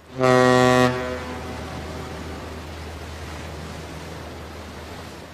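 A ship's horn sounding one short, loud blast, followed by a long fading echo over a steady low hum.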